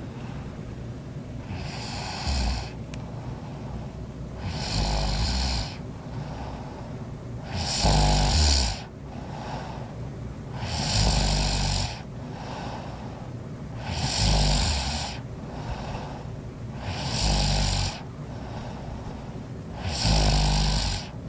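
A woman snoring in her sleep, one snore about every three seconds, seven in all, each lasting about a second.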